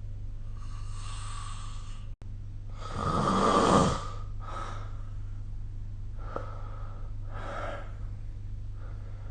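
A sleeping person snoring, with several noisy breaths. The loudest is a rough snore of about a second, about three seconds in. A steady low hum runs underneath.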